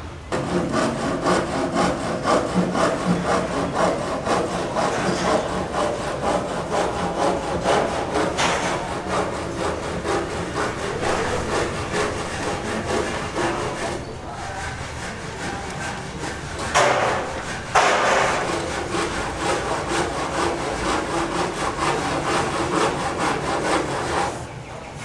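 Wood being sawn: a steady run of rapid, rasping strokes, with a brief pause about halfway through and a louder patch a few seconds later.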